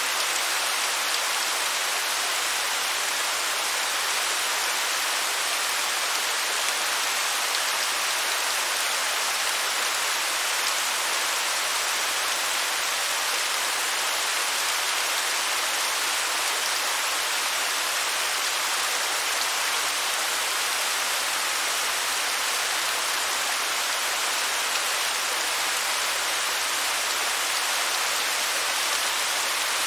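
Waterfall: water falling and splashing in a steady, even hiss that sits mostly in the upper range, with little low rumble.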